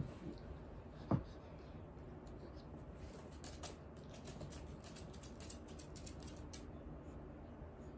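Two short knocks about a second apart near the start, the second the louder, then faint scattered small clicks and rustling.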